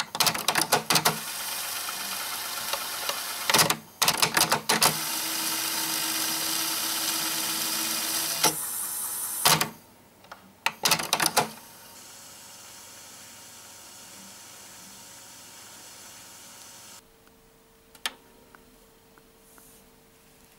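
Pioneer CT-S250 cassette deck mechanism running with its workings exposed: the motor, flywheel and rubber belts whir steadily, with bursts of sharp clicks as the transport changes mode near the start, about 4 s in and about 10 s in. The whir is loud for the first half, then quieter after the second set of clicks, and drops to a faint steady hum near the end.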